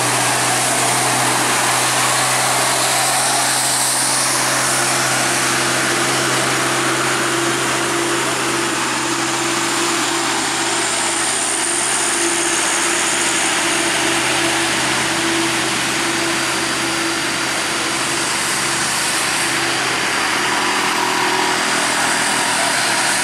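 Heavy diesel trucks, among them an Isuzu Giga bulk-cement tanker, running under load up a steep climb: a steady engine drone with road noise.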